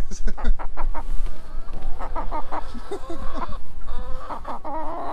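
A black hen clucking while held in a person's arms, a few wavering calls in two runs from about two seconds in, over a steady low wind rumble on the microphone.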